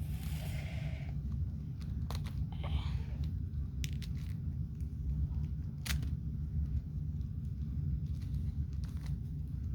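Plastic Rubik's cube being turned by hand: scattered clicks and brief rasps of the layers turning, over a steady low rumble.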